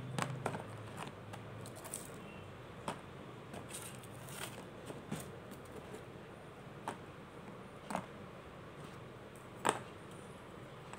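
Soaked crystalline mothball lumps being crushed by hand in a plastic tub, giving scattered, separate crunches and crackles, the loudest near the end.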